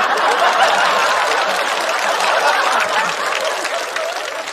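Studio audience applauding and laughing as a punchline lands, the clapping thinning out over the last second or so.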